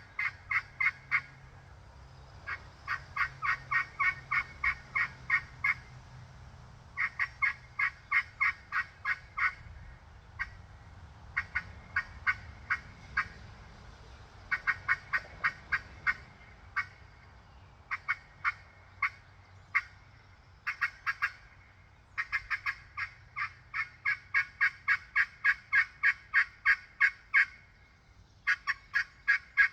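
Glass-over-yellowheart turkey pot call worked with a two-piece diamond wood striker, yelping in runs of short, evenly spaced notes with pauses between runs and a few single notes. The call is tuned for more rasp on the back end of each note.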